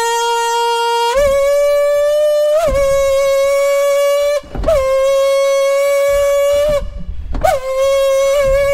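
Long held notes from a horn-like wind instrument. The note glides up into a steady pitch, steps up about a second in, and breaks off briefly twice before resuming. A low rumble runs underneath from about a second in.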